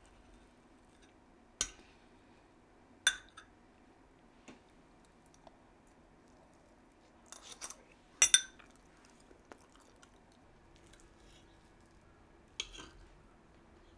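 Dishes and cutlery clinking now and then, five or so sharp ringing clinks spread out, the loudest a double clink just past the middle.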